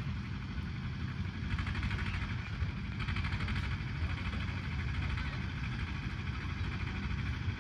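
Outdoor background: a steady low rumble with faint distant voices.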